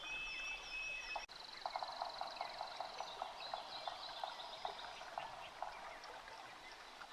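Faint tropical rainforest animal chorus of insects and frogs calling. High steady whistles give way about a second in to a high buzzing trill and a rapid series of pulsing calls, with scattered chirps throughout.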